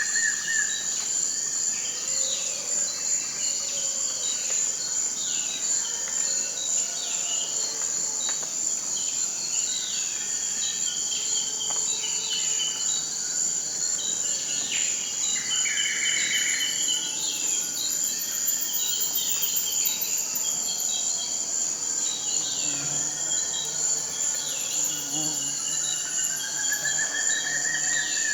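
Tropical rainforest ambience: a continuous high-pitched insect drone, with many short chirps and calls over it and an arching whistled call at the start and again near the end.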